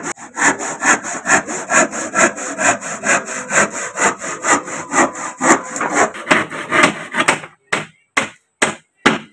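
Rhythmic scraping strokes, about four or five a second, that thin out to a few separate strokes and stop near the end.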